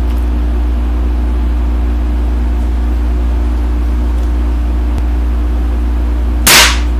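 A steady low hum with a few fixed tones above it, like mains or motor hum, and one short, sharp, loud burst about six and a half seconds in.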